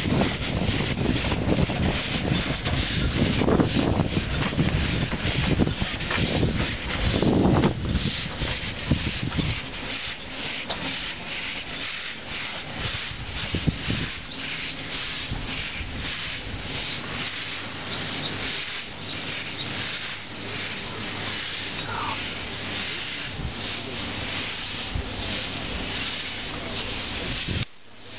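Narrow-gauge steam locomotive "Sherpa" pulling away, with regular exhaust chuffs and steam hissing from its open cylinder drain cocks. The sound is loudest and fullest in the first eight seconds, then lighter as the engine draws away, and it cuts off just before the end.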